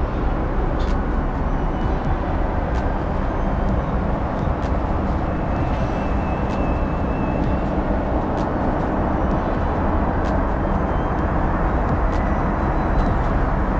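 Steady cabin noise of a Boeing 777-200ER in cruise at about 34,000 feet: the even rush of airflow and engines heard from inside the cabin, with a few faint clicks.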